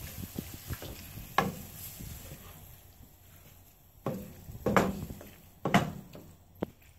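Spatula scraping and knocking against a ceramic-coated frying pan as sliced chicken is stirred. The strokes are irregular, and the loudest knocks come about two thirds of the way in. A faint sizzle from the pan thins out partway through.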